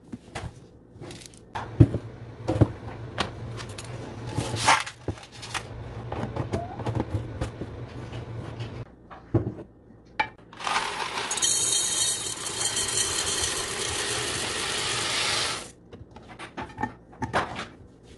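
A plastic storage tub's snap-on lid pressed shut, with sharp clicks and taps as containers are handled. Past the halfway mark, dry elbow macaroni is poured into a glass jar, a dense even rush of pasta for about five seconds that stops suddenly. A few clinks follow as the jar's metal lid goes on.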